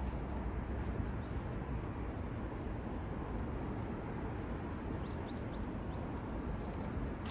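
Faint wild bird chirps, short falling notes, a few at a time, over a steady rushing background noise.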